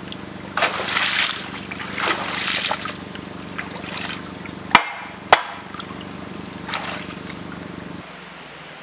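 Water splashing and sloshing in short surges as a long-handled scoop is dipped into a shallow stream and water is poured out, with two sharp knocks about halfway through. A steady low hum runs underneath until near the end.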